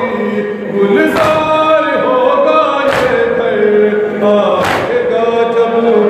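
Men chanting a noha, a Shia lament, together in a steady melody, with a group chest-beating (matam) strike landing in time about every 1.8 seconds, three times.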